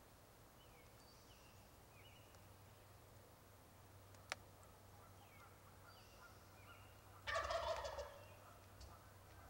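Wild turkey tom gobbling once, a loud rapid rattling gobble lasting under a second, about seven seconds in. Before it come faint high bird chirps and a single sharp click.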